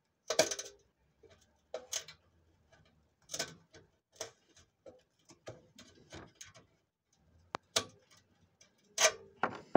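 Irregular clicks, taps and scrapes of hand tools against the roller and the fittings of a wooden roller shutter, while new straps are being fixed to the roller.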